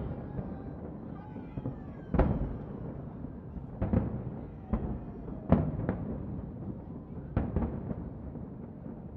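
Distant fireworks display: aerial shells bursting in about seven irregular booms, each trailing off in a rolling echo, over a continuous low rumble.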